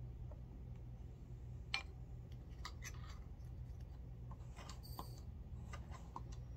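Scattered light clicks and metallic taps of brass cartridge cases being handled and a Lee powder measure being worked, with one sharper click about two seconds in, over a steady low hum.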